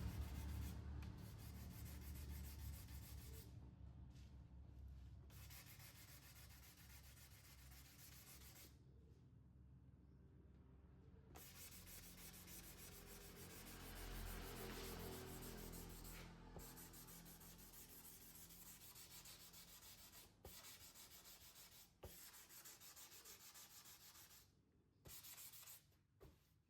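Faint sandpaper rubbing on a motorcycle body panel: hand sanding that stops and starts several times.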